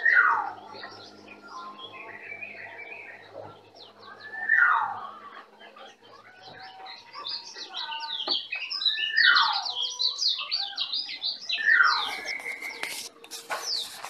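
Songbirds chirping and singing: many quick high chirps overlap, and a loud call slides downward about every four to five seconds. A few sharp clicks come near the end.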